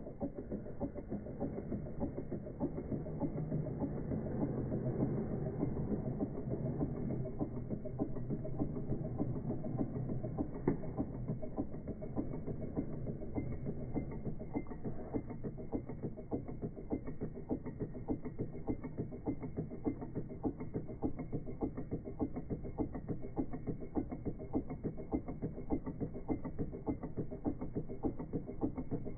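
Wiggers Stiwi 2 model Stirling hot-air engine running, its pistons, cranks and linkages giving a rapid, even mechanical ticking.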